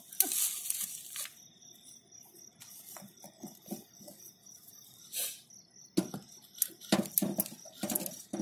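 Crickets chirping steadily in the background, with a brief rustle at the start and, in the last couple of seconds, a run of knocks and clinks as the aluminium pot is set and shifted on the stove's stones.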